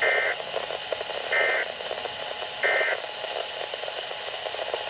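Three short bursts of Weatheradio Canada's SAME digital alert code, a rapid warble between two high tones, each about a third of a second long and spaced about 1.3 s apart; their shortness fits the end-of-message code. A steady radio hiss runs underneath, heard through a receiver's speaker.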